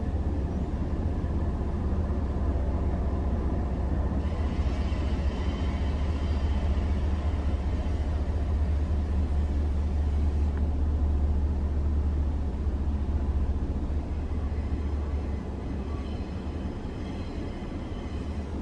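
Steady low rumble of road traffic, easing off a little near the end.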